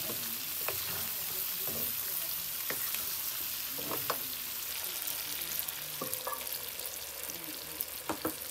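Pork sizzling as it fries in an iron kadai, a steady hiss, while a steel ladle stirs it and scrapes and clicks against the pan every second or two. Near the end come two or three sharp metal clinks.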